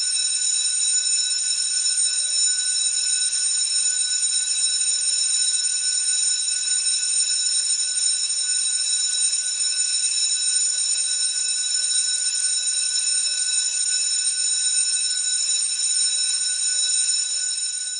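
A steady, high-pitched electronic tone: several fixed pitches layered over a hiss, unbroken and unchanging, beginning to fade near the end.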